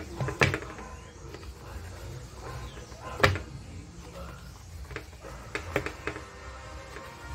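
A kitchen knife cutting through a slab of sesame sweet on a round metal tray, its blade knocking sharply against the tray a few times: twice loudly, about half a second in and about three seconds in, then several lighter taps around five to six seconds.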